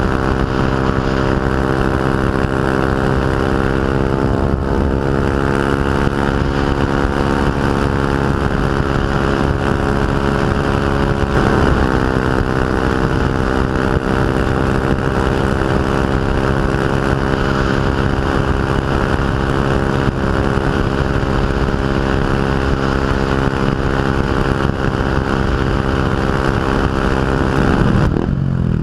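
Yamaha WR125X's single-cylinder four-stroke engine running loud through an Arrow full exhaust system, holding a steady engine speed, then dropping in pitch as the throttle closes near the end.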